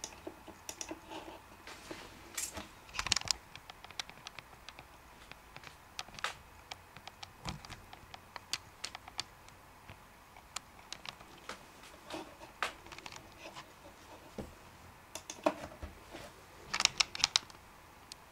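Scattered sharp clicks and taps of a computer mouse and keyboard, irregular, with a quick run of several clicks near the end.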